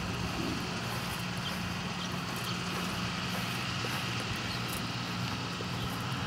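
A steady, low engine drone running at an even speed under a constant background hiss.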